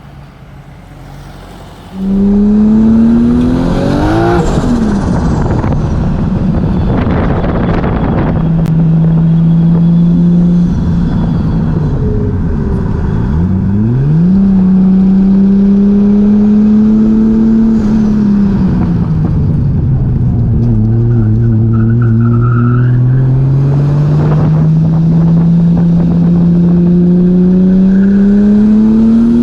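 Turbocharged 2JZ-GTE inline-six in a Nissan Cefiro being driven hard, coming in loud about two seconds in. Its note climbs and drops with throttle and gear changes: a quick climb around four seconds in, a dip and sharp climb near the middle, and a long steady climb near the end.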